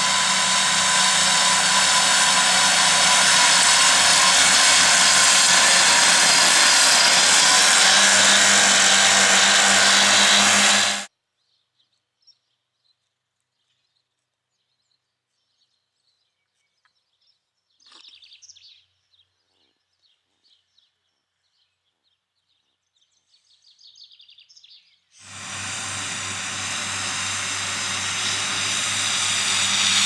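Fendt 826 Vario tractor and Kuhn FC 9530D triple disc mower at work cutting grass: a loud, steady engine and mower drive sound with a constant hum. It cuts off suddenly about eleven seconds in, leaving near silence with a few faint bird chirps, then comes back suddenly a few seconds before the end.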